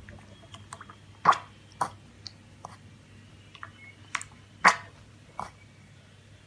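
Irregular sharp clicks and taps, a dozen or so, three of them louder, about a second in, near two seconds and near five seconds, over a faint low hum.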